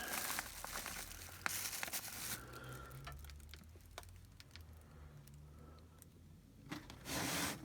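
Hands rummaging through stored cable ties and their packaging: rustling and crinkling with scattered light clicks. It is busiest in the first couple of seconds, thins out to occasional ticks, and ends with a short burst of rustling.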